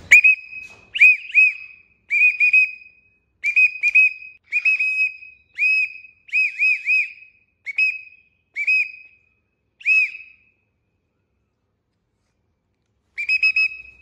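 A person whistling short, high notes in quick runs of two or three, calling a baby Alexandrine parakeet to fly to the hand. The runs repeat for about ten seconds, stop, and come back once more near the end.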